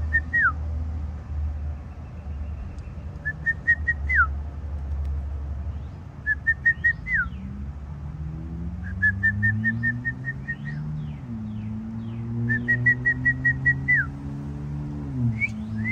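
A person whistling to a cat: short phrases of quick, evenly repeated high notes, each ending in a falling slide, repeated about every three seconds. A low engine-like hum runs underneath, rising slowly in pitch and dropping twice in the second half.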